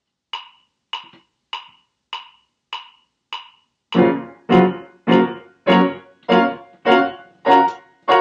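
A metronome ticking at 100 beats per minute: six clicks alone, then about four seconds in a grand piano starts playing blocked seventh chords, one chord struck on each click.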